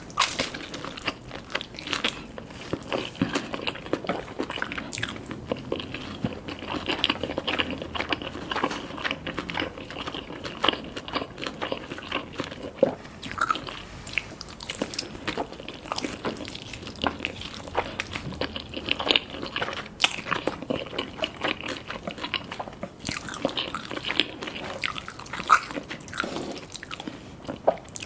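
Eating sounds: chewing and biting into crunchy food, with frequent irregular sharp crunches over continuous chewing.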